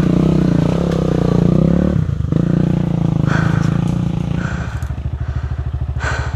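Single-cylinder four-stroke trail motorcycle engine running on the throttle, dipping briefly about two seconds in, then settling to a lumpy idle with slow, even pulses over the last couple of seconds.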